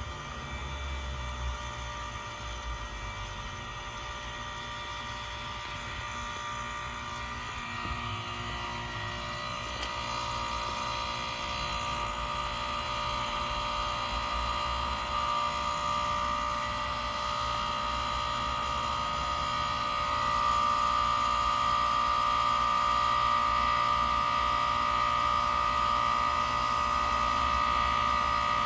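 1986-88 York Stellar heat pump outdoor unit running through its defrost cycle: a steady compressor hum with a high whine that grows louder over the second half.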